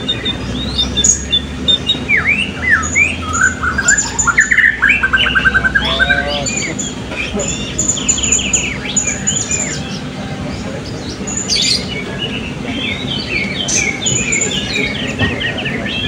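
Several caged blue-crowned hanging parrots calling at once: overlapping high chirps, quick trills and squeaky notes.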